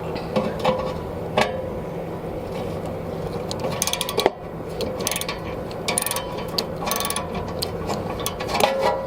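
Ratcheting clicks of a hand tool working on a fitting, over a steady motor hum, with a few short sharp bursts about halfway through.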